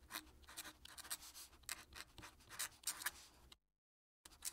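Fountain pen nib scratching across paper in quick cursive strokes as a signature is written, a rapid run of short scratches. It breaks off for a moment near the end, then starts again.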